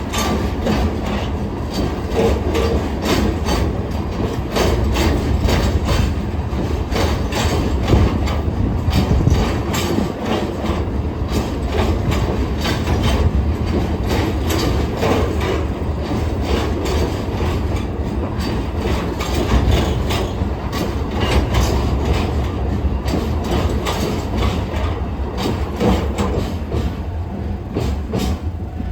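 Seino Railway freight train rolling steadily past at a level crossing. There is a continuous low rumble and a rapid, uneven clatter of wheels over rail joints and the crossing.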